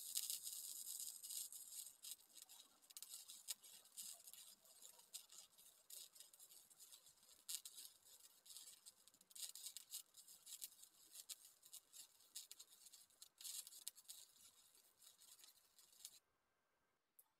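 Lincoln 100-amp MIG welder running flux-core wire, its arc giving a faint, irregular crackle of fast pops as a weld bead is laid. The arc cuts off near the end.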